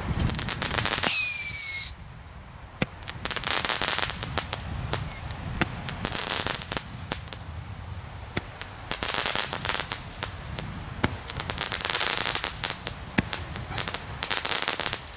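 Consumer fireworks going off. About a second in comes a loud falling whistle, then five spells of dense crackling, each about a second long and two to three seconds apart, with scattered single pops between.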